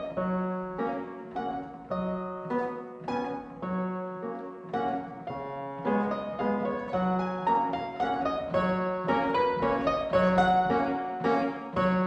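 An 1808 Broadwood fortepiano playing a waltz: a low bass note about once a second, followed by lighter chords, under a melody in the treble. It gets a little louder about halfway through.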